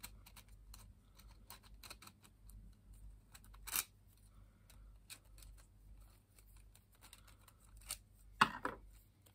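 Faint scattered clicks and light clatter of 3D-printed plastic puzzle pieces being handled and slotted together, with a couple of louder clacks.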